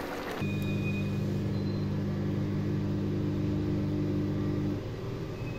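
A steady, loud mechanical hum with several held low tones and a faint high whine. It cuts in abruptly under half a second in, runs about four seconds and stops abruptly, after the sound of the curry bubbling in the pan.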